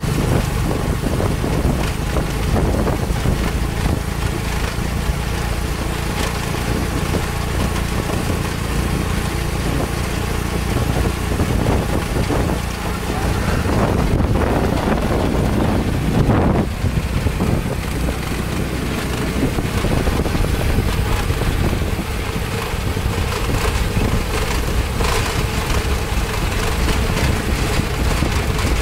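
Small motorbike engine running steadily under way, with road and wind noise on the microphone; a louder rush of noise comes about halfway through.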